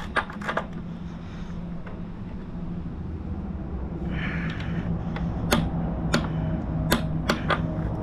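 A ratcheting torque wrench tightening a motorcycle's rear axle nut to 110, heard as a handful of sharp metal clicks: two near the start, then five more in the last three seconds. A steady low hum runs underneath.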